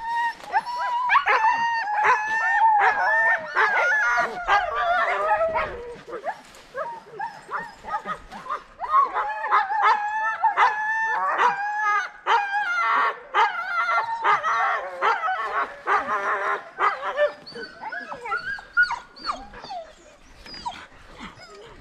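A harnessed dog team barking, yelping and whining in high, wavering cries, almost without pause. This is the team's excitement at the start line, straining to run. The cries ease off over the last few seconds.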